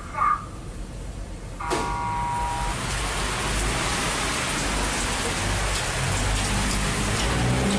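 A sharp click, then a steady electronic beep for about a second from the Mitsubishi elevator as it arrives, followed by heavy rain pouring, loud and steady, heard through the open elevator doors. A low rumble comes in near the end.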